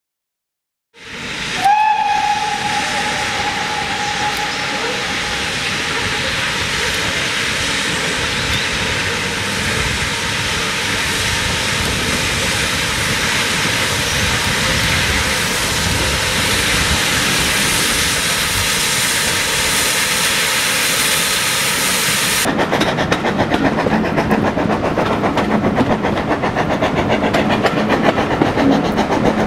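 GWR 5700 Class pannier tank steam locomotive arriving with its coaches: a steady hiss of steam, and its whistle about two seconds in, one long note that fades over several seconds. About twenty-two seconds in the sound changes abruptly to riding in a coach behind the engine, with the wheels clicking over the rail joints.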